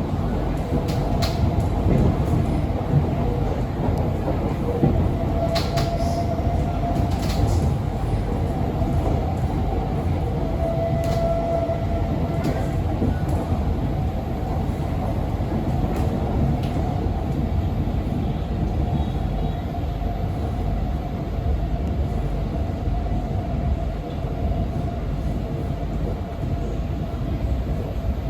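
C151B metro train running between stations, heard from inside the car: a steady low rumble of wheels on rail with a constant mid-pitched drive tone, and a few sharp clicks and knocks scattered through.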